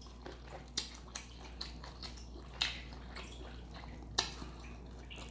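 Wet eating sounds of a seafood boil in garlic butter sauce: quiet wet crackling with several sharp smacks and clicks spread through.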